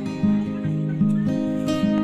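Background music: an acoustic guitar piece, plucked notes and chords changing in steady succession.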